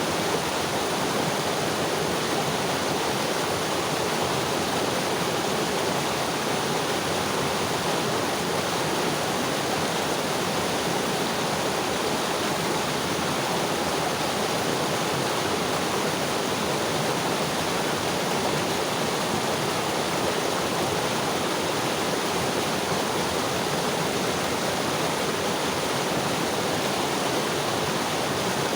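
A mountain river rushing steadily, its water running over rocks in an even, unbroken flow.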